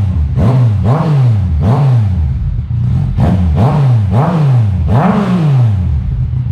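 Sport motorcycle engine, likely the Yamaha R1's inline-four, being revved in about eight quick throttle blips. Each blip rises and falls in pitch, and the engine idles between them.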